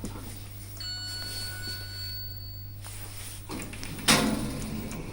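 A lift car hums steadily. About a second in, a high electronic chime tone sounds steadily for about two seconds and then stops. Near the end there is a sudden loud knock from the lift doors.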